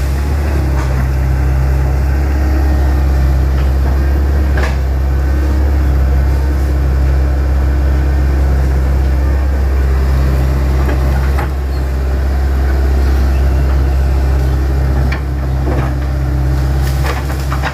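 Hitachi Zaxis 110 excavator's diesel engine running steadily under load as it works at felling trees, with a few short sharp cracks about a quarter of the way in, mid-way and near the end.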